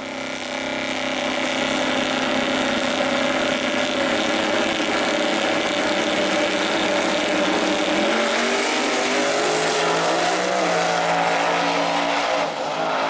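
Drag-race engines of a twin-turbo Mustang and the car in the other lane running loudly and steadily at the starting line, then changing pitch about eight seconds in as the Mustang launches down the strip.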